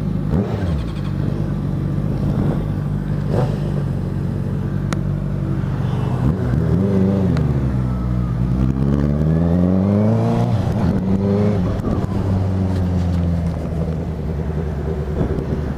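Honda CB650F's inline-four engine, running steadily at low revs, then rising and falling in pitch about halfway through as the bike picks up speed through the gears.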